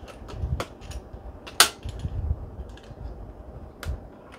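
Clicks and small knocks from a vintage Polaroid Land camera being handled as its lever and parts are tried, with one sharp click about a second and a half in and another near the end.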